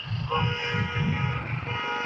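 Road traffic noise with a vehicle horn sounding about a third of a second in and held for over a second.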